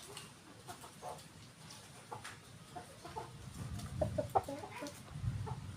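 Free-range village chickens clucking, a string of short calls that gets busier after about three seconds, with some low thumps or rustling underneath.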